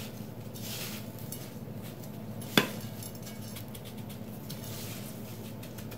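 Faint rustling and crunching of panko breadcrumbs as gloved hands press and roll a breaded cheese stick on a plate, with one sharp click about two and a half seconds in, over a steady low hum.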